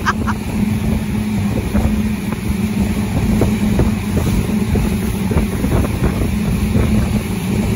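Motorboat engine running steadily as a low, even hum, with wind buffeting the microphone and water noise.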